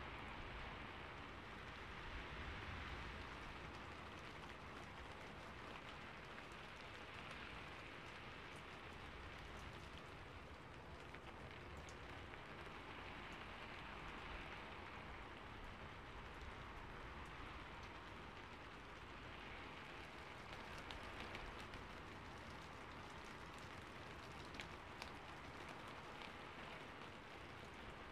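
Faint steady rain-like hiss that swells and eases every few seconds, with a few scattered light ticks.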